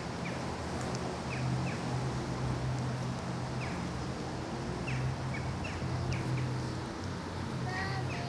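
Birds chirping with short, scattered calls over a steady low hum of outdoor background noise.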